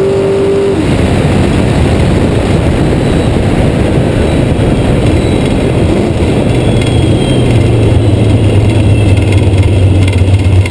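Dragster engine at high revs cut back about a second in as the throttle is lifted after the run, leaving a rough rush of wind and road noise as the car coasts. In the second half the engine comes through as a steady low rumble at low revs, growing louder as the car slows.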